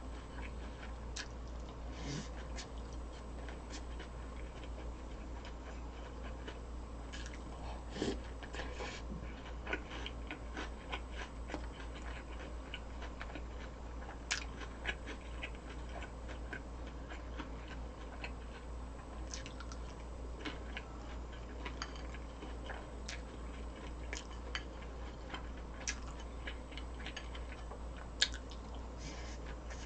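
A person chewing and biting food close to the microphone, with many short, crisp clicks scattered irregularly through it, over a steady low hum.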